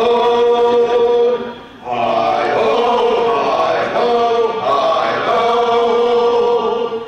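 Male barbershop quartet singing a cappella in four-part harmony, holding long chords, with a brief pause for breath about two seconds in.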